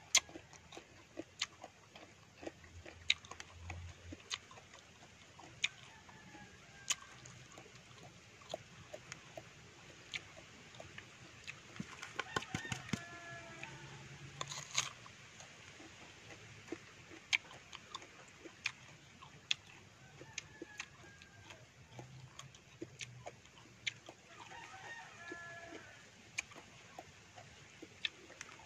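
A rooster crowing in the background, most clearly about twelve seconds in and again near the end, over frequent close, crisp clicks of someone biting and chewing fruit slices.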